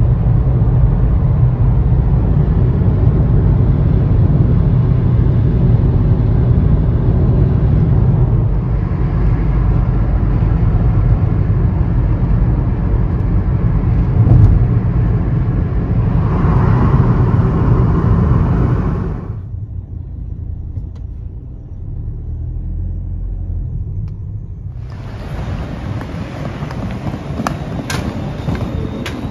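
Loud, steady low rumble of a vehicle in motion, cut off suddenly about two-thirds of the way in for a quieter rumble, then changing again near the end.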